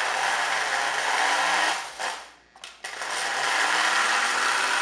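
Electric motor and gearing of a Lionel #392E standard gauge steam locomotive running on transformer power, wheels spinning free off the track, with a steady whir. It stops briefly about two seconds in and starts again, as the locomotive is cycled between forward and reverse.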